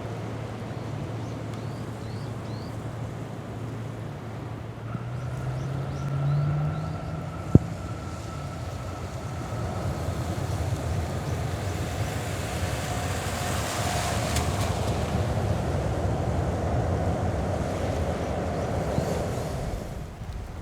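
Jet noise from a Kawasaki C-2 military transport's twin General Electric CF6 turbofan engines. The rushing noise swells over the second half with a faint whine and eases off near the end. There is one sharp click about a third of the way in.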